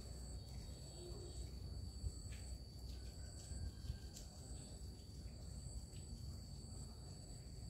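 Faint insect calling: a steady high-pitched whine with a higher note pulsing on and off over it, above a low rumble and a couple of soft knocks.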